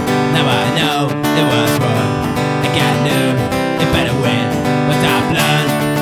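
Acoustic guitar strummed steadily, playing an acoustic punk song.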